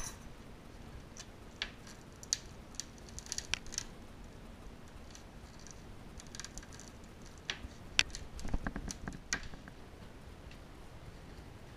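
Knife paring a wooden bass bar while it is fitted to a double bass top: irregular short scraping strokes and light ticks, with the sharpest click about eight seconds in.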